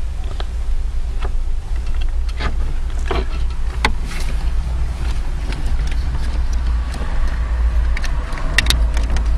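Plastic clicks and knocks of wiring-harness connectors and a small interface module being handled and pushed into the dashboard opening behind a car radio, scattered through, with a quick cluster of clicks near the end, over a steady low rumble.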